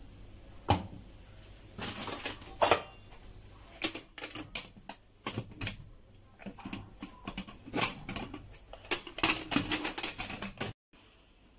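Stainless-steel pressure cooker lid being set on the pot and twisted shut: irregular metal clanks, clicks and scrapes, several in quick runs.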